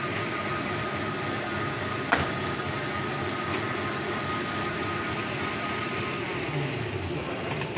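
Electric countertop blender running steadily, blending a mint-and-lemon drink, its motor giving a constant whirr with a faint steady whine. A single sharp click about two seconds in.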